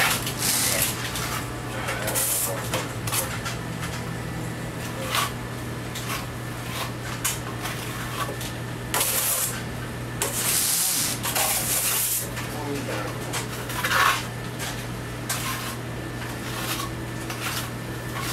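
Steel plastering trowel working wet plaster: short scrapes and light metallic clinks, with a few longer hissing strokes, over a steady low hum.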